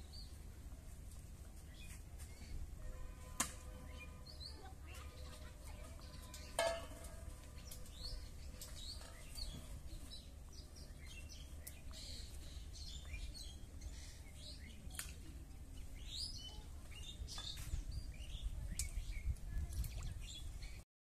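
Small birds chirping over and over, short high calls scattered throughout, over a steady low rumble that grows louder near the end. Two sharp knocks stand out, about three and a half and six and a half seconds in, and the sound cuts off abruptly just before the end.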